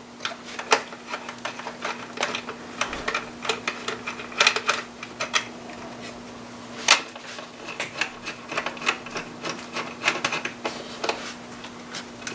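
Ratcheting wrench clicking in short irregular runs, with metal taps and clinks, as the 10 mm bolts holding the fuel rail are loosened.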